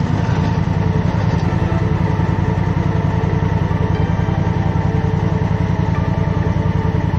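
Large adventure motorcycle engine running at a steady pitch, a fast even firing pulse.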